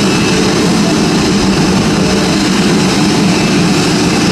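Airbus A330neo's Rolls-Royce Trent 7000 turbofan engines running steadily at low power on the apron: a loud, even hum with a faint high whine over it.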